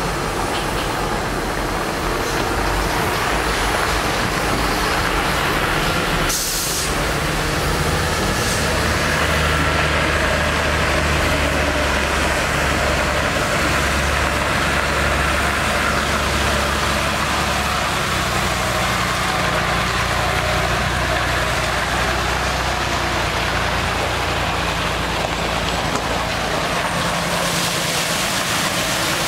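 Cummins ISC diesel inline-six of a Freightliner M2 water truck running steadily, driving its PTO water pump, with the steady rush of water spraying from the truck. A brief burst of hiss about six seconds in.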